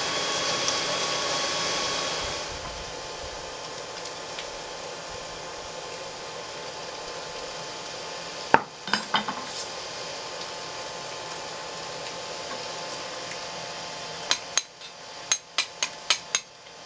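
Hammer striking a cutting chisel held on red-hot steel over the anvil, splitting the end of the bar into a fork's two tines: a few sharp metallic strikes about halfway through, then a quick regular run of strikes, about three a second, near the end. A forge blower hisses steadily at the start and eases off after about two seconds.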